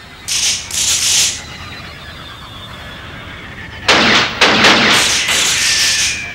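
Film sound effects: two short, high-pitched hissing bursts about half a second in, then from about four seconds in a louder, harsh burst of noise in several quick chunks lasting about two seconds.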